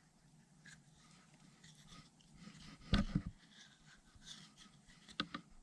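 Faint handling sounds of fingers working a rubber seal into the groove of a hydraulic cylinder's bore: light rubbing and small clicks, with a soft knock about three seconds in.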